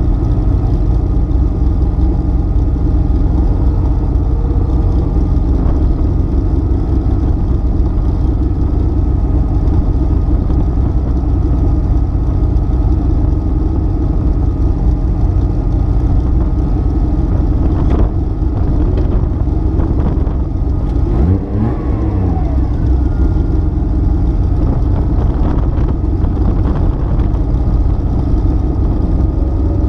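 Porsche 930 Turbo's air-cooled turbocharged flat-six idling steadily, heard inside the cabin, with a short rise and fall in pitch about 21 seconds in.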